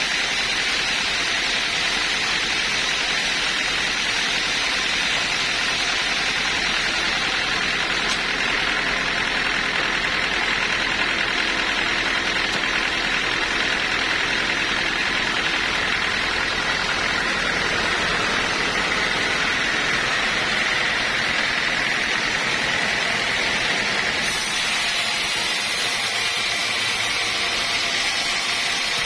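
Sawmill machinery running steadily with a continuous whine. A higher hiss joins near the end.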